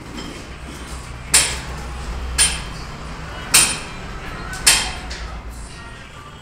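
Four sharp knocks, about one a second, each ringing briefly, over a steady low hum.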